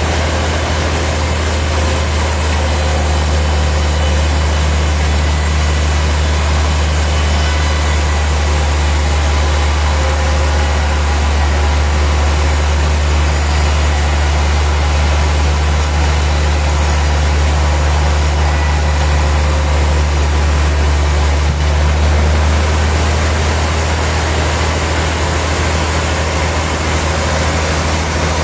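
Heavy machinery running with a steady low hum, a faint higher tone joining about three seconds in and dropping out near the end.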